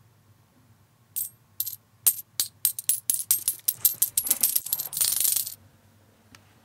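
Coins clinking and dropping. A run of sharp metallic clinks comes faster and faster until it merges into a dense jingle, which stops suddenly about five and a half seconds in.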